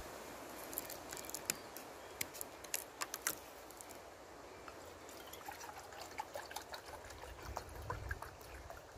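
Water poured from a plastic bottle into a camping pot, trickling and splashing, with a run of sharp clicks in the first few seconds.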